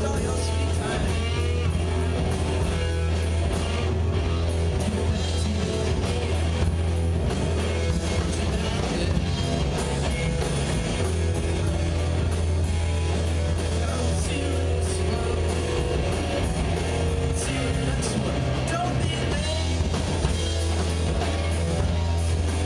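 Live rock band playing electric guitars and a drum kit through amplifiers at a steady volume.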